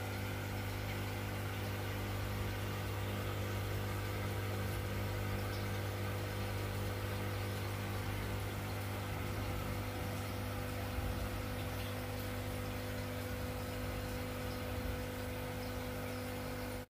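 Steady electric hum of an aquarium air pump feeding the fry tank's airline, with a light hiss of aeration over it.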